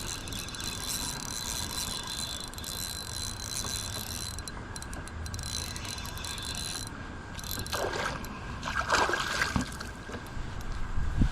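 A fishing reel is wound while a hooked smallmouth bass is fought from a kayak. After about eight seconds come a few short splashes of water as the fish nears the boat.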